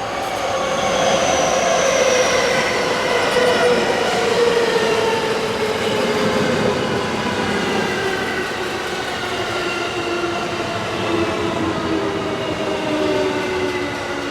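JR West 223 series electric train, two sets coupled, braking into the station: its motor and inverter whine falls steadily in pitch as it slows, over the rumble of wheels on rail.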